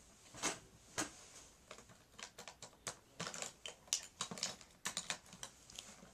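Makeup items clicking and clattering as someone rummages through a makeup kit looking for a lipstick: two separate knocks in the first second, then a quick run of many small clicks.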